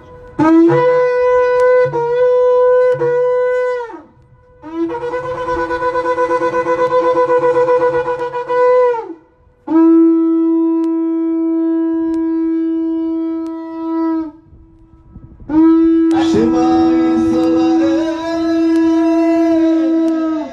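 Long curved shofar blown into a PA loudspeaker. First come several short notes, then a long wavering blast, then a long steady blast, and last a long blast that jumps up in pitch about a second after it starts.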